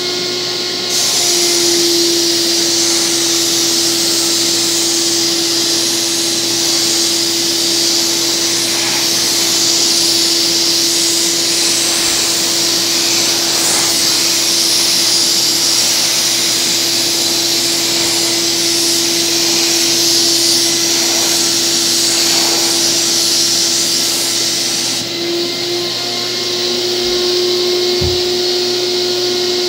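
HVLP paint sprayer running: the turbine's steady whine, with the hiss of air and paint from the spray gun starting about a second in and stopping a few seconds before the end.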